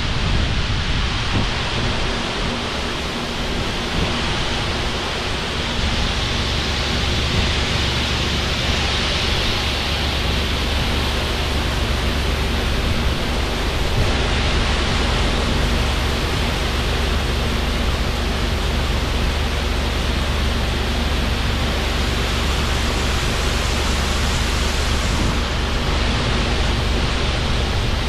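Steady machinery noise with a constant low hum under a broad hiss, and wind rumbling on the microphone throughout.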